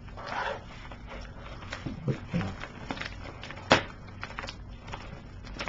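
Light handling noise: scattered soft clicks and taps with a brief rustle near the start and one sharper click about two thirds of the way through.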